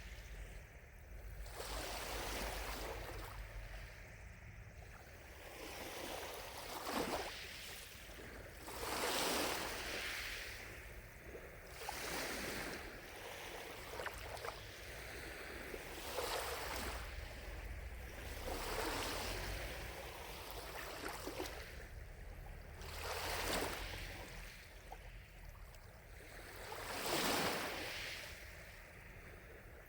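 Gentle lake waves lapping at the shore, a soft wash of water swelling and falling back every few seconds.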